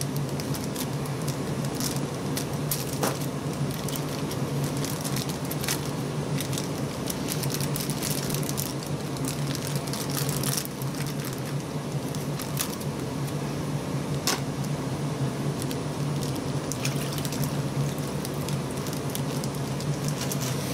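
Thin plastic fish-shipping bags crinkling and rustling as they are opened and emptied into an aquarium, with small splashes of water and scattered clicks, over a steady low hum.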